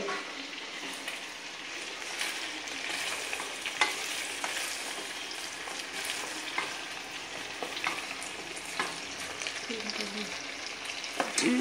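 Chopped vegetables sautéing in a stainless steel pot: a steady sizzle, with scattered knocks and scrapes as a wooden spatula stirs them against the pot.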